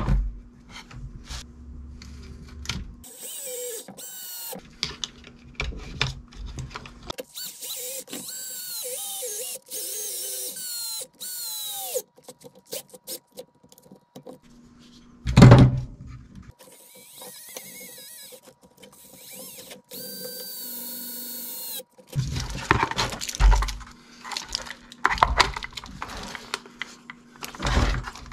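Cordless screwdriver whirring in runs of a few seconds, its whine dipping in pitch as it drives screws, amid clicks and knocks from handling the RC car's plastic chassis parts. A loud thump comes about fifteen seconds in.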